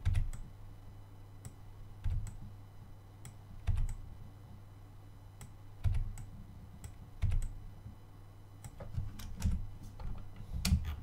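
Computer keyboard keys and mouse buttons clicking in scattered single presses a second or two apart, then a quicker run of presses near the end, over a low steady hum.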